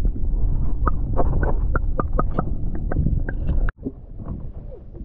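Water sound picked up by a camera held underwater while snorkelling: a low, muffled rumble with a quick string of sharp clicks. It cuts off abruptly about three and a half seconds in, leaving a much quieter open-air hiss.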